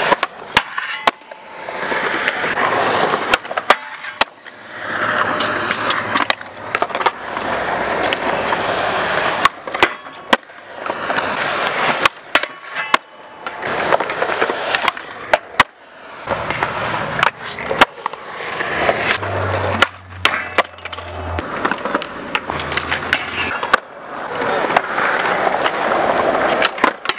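Skateboard wheels rolling over concrete in repeated passes, each swelling and fading, with sharp clacks of boards popping and landing.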